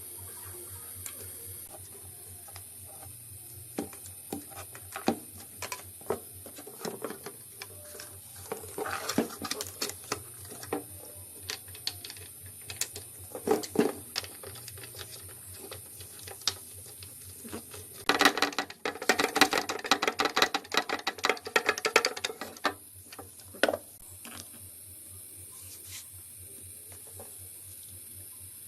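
Scattered clicks and knocks of hand work on small metal parts, thickening into dense clatter for a few seconds past the middle, over a steady low hum.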